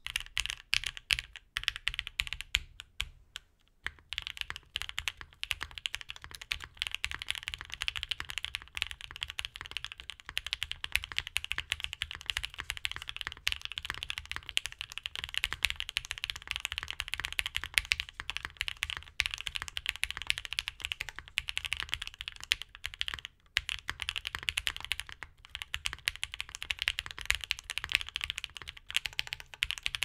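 Continuous typing on a mechanical keyboard with lubed Durock L2 linear switches in a top-mount Freebird TKL with a POM plate, tape mod and GMK keycaps: rapid, dense keystrokes. A short lull comes about three seconds in, and a brief gap near the twenty-three second mark.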